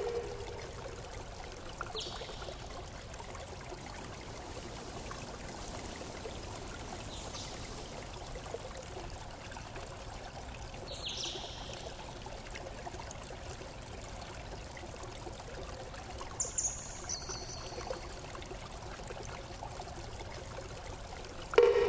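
Steady rush of flowing water, like a stream, with a few short high chirps about 2, 11 and 17 seconds in. A loud ringing chime-like tone begins just at the end.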